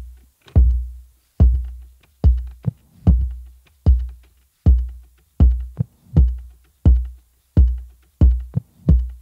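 Sparse drum-machine beat on its own, with deep booming hits topped by a click, about one every three-quarters of a second. A few softer extra hits fall between them.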